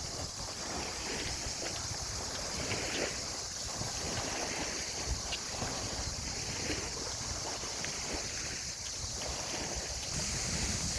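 Wind on the microphone over water, with a steady high-pitched hiss.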